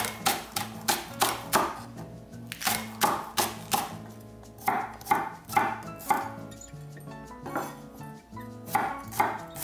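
Chef's knife slicing green onion, then garlic cloves, on a wooden cutting board: quick, even knife strikes about three a second, in runs broken by short pauses.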